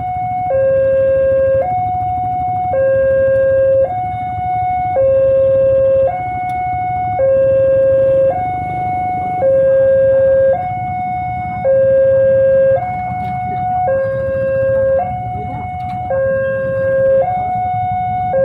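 Railway level-crossing warning alarm sounding with the barrier down: an electronic signal alternating between a higher and a lower tone, each held about a second, over a low rumble.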